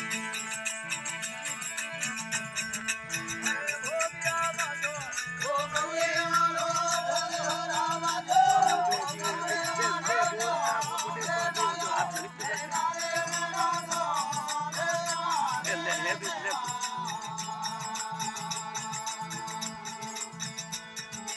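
Rajasthani folk bhajan music: a steady drone under a fast, even rattling beat, with a wavering melody line rising over it for most of the middle of the stretch.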